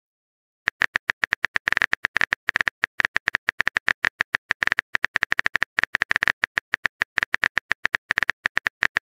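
Rapid, irregular clicks of a typing sound effect, like keys being tapped, starting just under a second in and running about ten a second.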